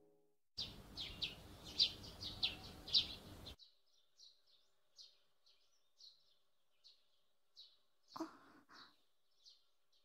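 Small birds chirping as a morning ambience: quick chirps over a faint hiss for the first few seconds, then single short chirps repeating about every three-quarters of a second. Two short soft sounds come about eight seconds in.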